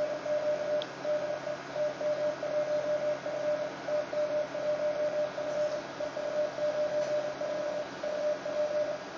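Transceiver's CW sidetone: a single steady beep keyed on and off in the dots and dashes of Morse code as a CQ call is sent, over a constant hiss.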